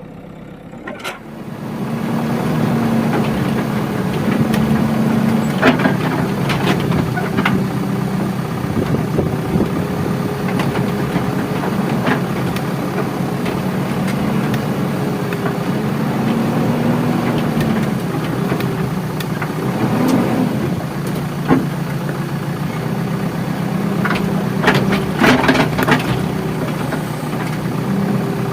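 Heavy diesel engine running steadily, its pitch rising and falling a little as it works, coming in loud about a second in. A few sharp knocks and clanks sound over it, several close together near the end.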